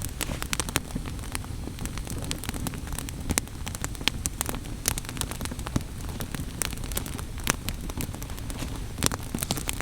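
Wood fire burning, with irregular sharp crackles and pops over a low steady rumble of the flames.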